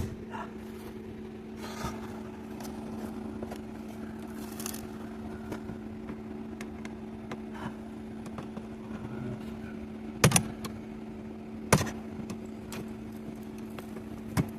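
Two sharp knocks about a second and a half apart, late on, like hammer blows knocking a part off scrap metal, over a steady low hum.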